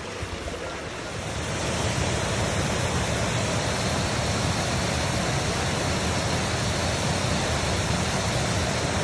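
Small waterfall pouring over a concrete weir into a creek pool, a steady rush of water that grows louder about a second and a half in.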